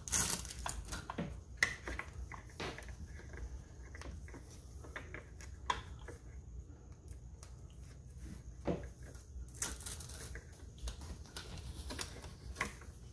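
Scattered small clicks, taps and rustling of a cord being handled and pressed into the plastic cable-management cover on a full-motion TV wall-mount arm, with a busier run of clicks about ten seconds in.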